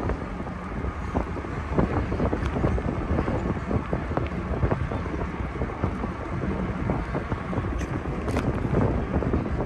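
Wind buffeting the microphone of a rider on a moving bicycle: a steady low rush with irregular gusty flutter.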